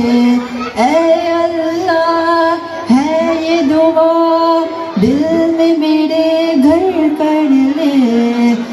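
A teenage boy singing a hamd, a devotional song in praise of God, into a handheld microphone. He holds long notes with ornamented bends between them, and no instrument is heard.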